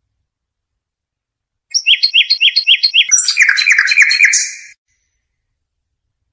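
Song of the bird that Arab bird keepers call al-Haddad: one phrase of about three seconds beginning about two seconds in, a run of about six evenly repeated high notes followed by a lower, faster run of notes, then it stops.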